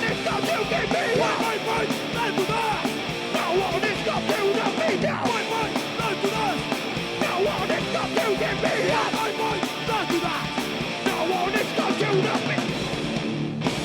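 Live punk/metal band playing loud: drums with steady cymbal ticks under distorted guitars, with a line that bends up and down in pitch, and a short break just before the end.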